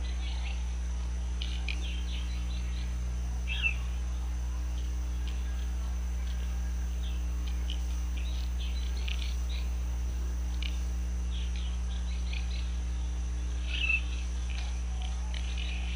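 Birds chirping in short, scattered calls, a little louder about a quarter of the way in and again near the end, over a steady low hum.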